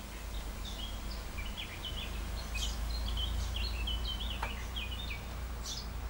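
Small birds chirping in quick, high twittering notes, busier in the second half, over a steady low rumble.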